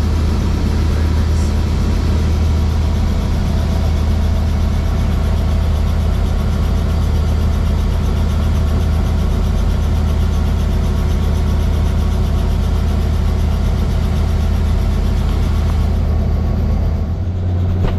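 Helicopter engine and rotor running steadily on the ground, heard inside the cabin: a loud, even low hum with a fast beat, which changes briefly about a second before the end.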